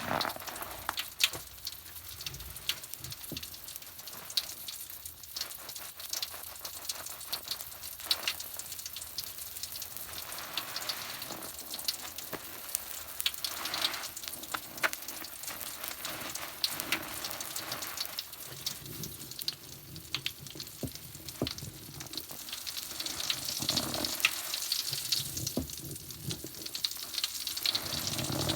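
Foam of Pinalen and Magic Bath cleaner crackling and fizzing, a dense, sizzling patter of tiny pops that swells now and then and grows louder near the end.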